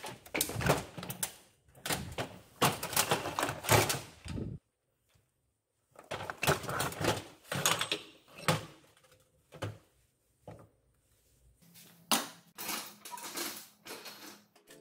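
Metal workshop parts clattering and knocking as gearboxes are picked up and handled on a steel shelf, in irregular bursts of rattling with a short dead-silent gap about four and a half seconds in.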